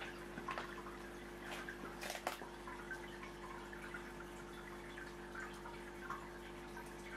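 Aquarium water trickling and dripping over a steady pump hum, with a few louder splashes about two seconds in.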